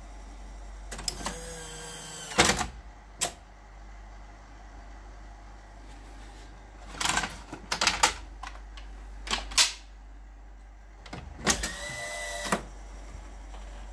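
Mechanism of a Grundig BK 2500 VCR (Philips VCR format) working through an eject: a short whine ending in a loud clunk about two seconds in, clicks and clatter in the middle as the cassette is lifted out of the top-loading compartment, and near the end another short whine followed by clunks as the compartment lid is pressed shut.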